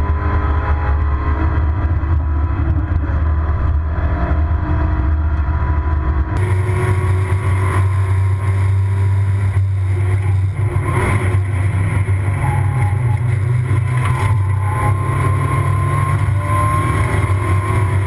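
Mazda MX-5's four-cylinder engine running hard inside the stripped, roll-caged cabin on track, its note rising and falling, with road and wind noise. About six seconds in the sound turns brighter and hissier.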